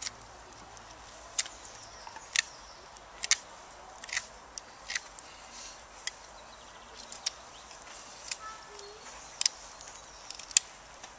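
Knife blade shaving a wooden bow-drill spindle: about ten short, sharp carving strokes at irregular intervals, roughly one a second.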